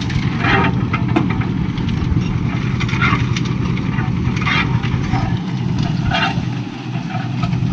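An engine running steadily, with short, higher-pitched sounds breaking in every second or two.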